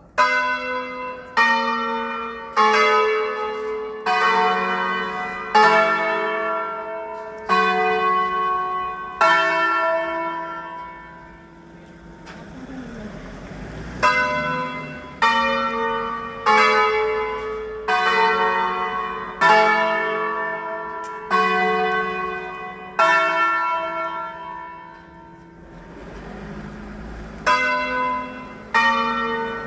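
Church tower bells rung one stroke at a time in a slow melody of different pitches, each stroke ringing out and fading as the next falls, with a short pause twice, once about halfway through and once near the end.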